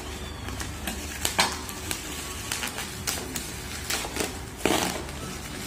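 Plastic parcel wrapping crinkling and crackling as it is cut and pulled open by hand, in irregular crackles with one louder rustle near the end.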